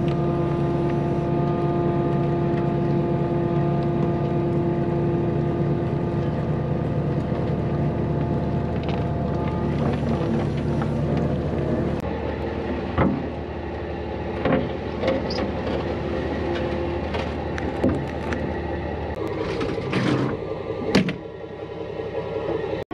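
Heavy diesel engine running at a steady speed. About halfway through its note shifts and a string of sharp metallic knocks and clanks comes in, the loudest two near the end.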